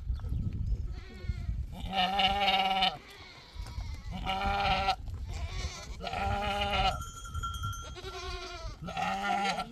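Sheep bleating: about five long, wavering bleats in turn, each around a second long, over a low rumble.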